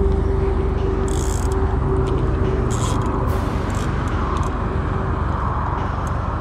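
Wind buffeting the microphone: a steady low rumble, with a faint steady hum that fades out about five seconds in.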